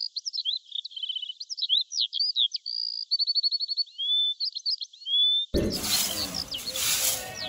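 Small songbirds singing: a busy run of high chirps, trills and short whistles. About five and a half seconds in the sound opens out, the birds carry on and a broom sweeps over bare dirt with a few swishing strokes.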